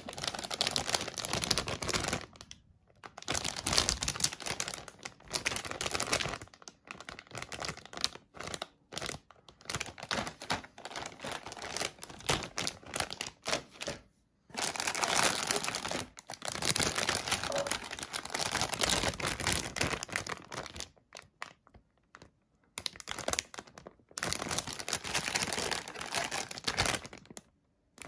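Clear plastic bags around model-kit runners crinkling and rustling as they are handled, with light clicking of the plastic runners, in bursts broken by a few short pauses.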